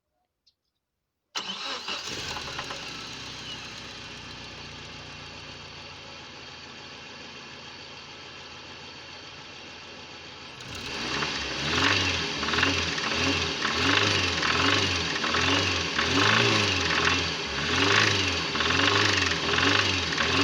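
Chery Amulet petrol engine starting about a second in, idling steadily, then revved in short repeated throttle blips, roughly one a second, from about halfway. The owner hears a knock in the engine whose cause is unknown.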